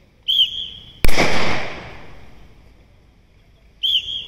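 A single rifle shot about a second in, loud and sharp, its echo dying away over about a second. A short, shrill whistle blast sounds just before the shot and again near the end.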